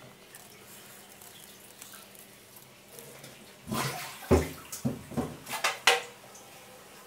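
A short run of knocks and clatter, several sharp strikes close together over about two seconds, starting around three and a half seconds in.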